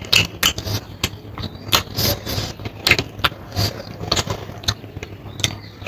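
Close-miked eating sounds: chewing and mouth noises with many irregular clicks and small crunches, over a low hum.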